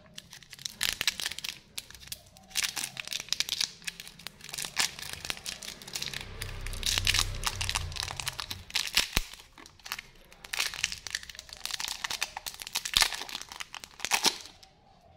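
Clear plastic lollipop wrapper crinkling and tearing in irregular bursts as it is pulled off a duck-shaped lollipop, with a dull low rumble of handling around the middle.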